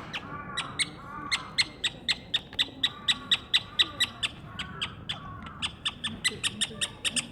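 Animal calls: two harsh, caw-like calls in the first second, then a rapid, even series of sharp high chirps, about three to four a second.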